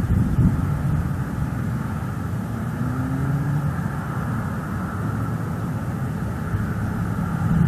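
Steady low outdoor rumble, with a faint pitched hum about three seconds in.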